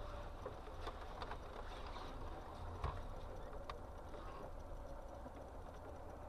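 Faint, steady low rumble of a car moving slowly in traffic, heard from inside the cabin through a dashcam's microphone, with a few small clicks and knocks, the loudest a little under three seconds in.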